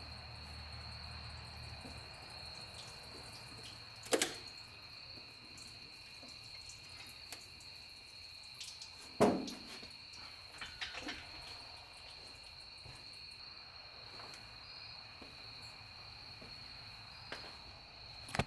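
A few knocks and clunks as a small-block Chevy 350 cylinder head is lifted off the block and moved aside, the loudest about four and nine seconds in, over a steady high chirping of crickets.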